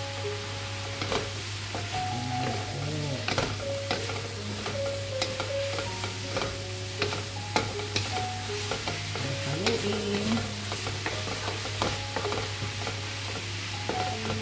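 Food sizzling as it is stir-fried in a pan, with repeated clicks and scrapes from the utensil stirring it.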